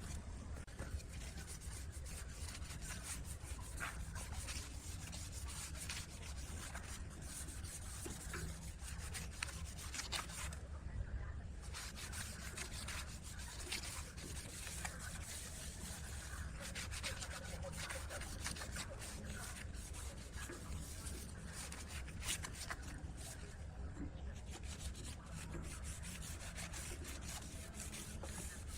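Continuous rubbing and scraping on wood, a scratchy sound full of small clicks, over a steady low hum.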